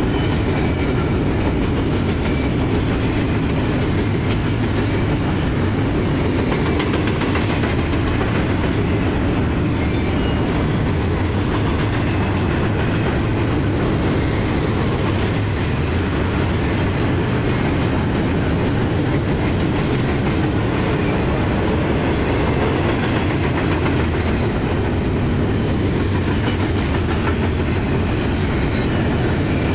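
Double-stack container freight train's well cars rolling past close by: a steady heavy rumble of wheels and cars with occasional wheel clicks on the rails.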